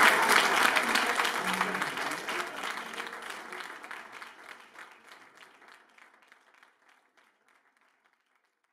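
Audience applauding with dense clapping, fading out steadily over several seconds to silence.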